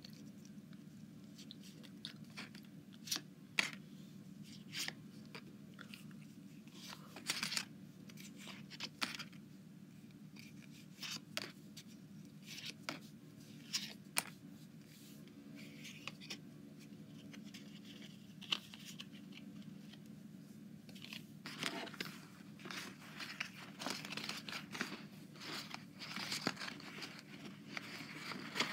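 Trading cards handled and flipped one after another, each giving a short crisp click or snap as it slides off the stack. About two thirds of the way through, the handling turns into a denser run of crinkling, with a low steady hum underneath throughout.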